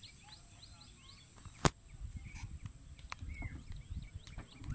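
A single sharp knock about a second and a half in, then irregular soft knocks and rumbling as a fishing handline is handled over a wooden boat. Faint bird chirps sound throughout.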